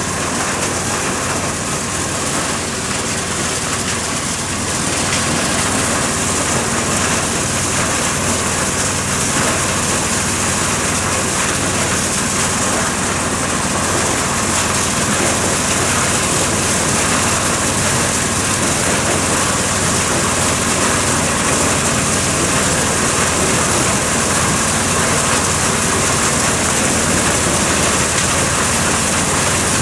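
Engine-driven corn sheller for unhusked maize running steadily: a loud, dense mechanical din over an engine hum. It gets a little louder about five seconds in.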